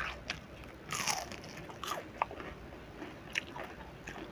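Crispy fried sepat fish being bitten and chewed: irregular sharp crunches, loudest about a second in, then quieter chewing.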